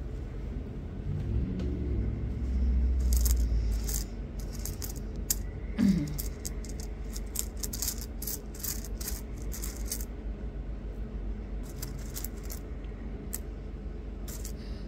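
Small pieces of rough opal clicking and clinking as they are handled, a run of quick sharp clicks lasting several seconds, with a few more clicks near the end. A low rumble sits under the first few seconds, and a short low sound comes about six seconds in.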